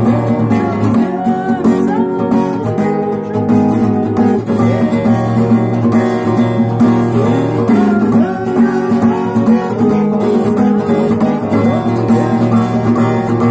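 Acoustic guitar strummed in a steady rhythmic pattern, with regular sharp strokes across the strings, typical of the 'стук' strumming technique that uses a percussive muted strike.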